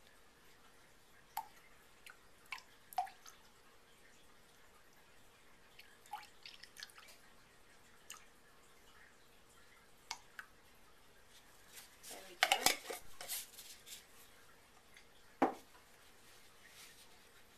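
Hydrosol dripping and trickling from a glass jar into a glass measuring cup of liquid: scattered single drops plinking, a brief louder run of splashes about twelve seconds in, and one sharp knock near the end.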